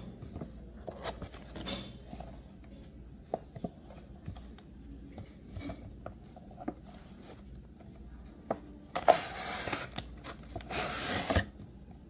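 A diecast model car's box being opened by hand: scattered light clicks and taps of the packaging, then two longer scraping rustles near the end.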